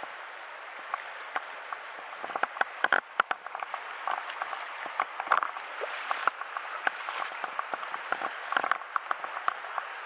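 Shallow river running, with irregular small splashes and sharp clicks starting about two seconds in as a hooked yamame is worked into a hand landing net in the water.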